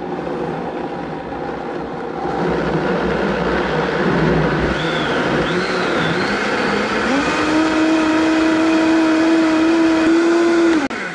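Countertop blender pureeing a red chile salsa. Its motor steps up in speed about two seconds in, climbs again about seven seconds in to a steady whine, then is switched off and cuts out suddenly just before the end.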